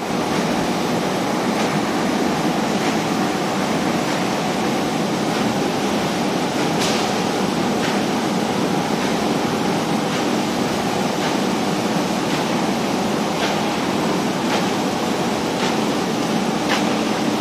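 Automatic paper burger-box forming machine (model BJ-B) running steadily: a continuous mechanical running noise with a light click about once a second.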